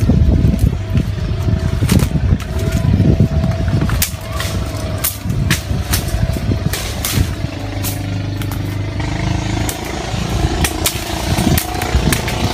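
Twigs and dry branches cracking and leaves rustling underfoot as people push through dense undergrowth, with many sharp snaps. A steady motor hum comes in about two-thirds of the way through.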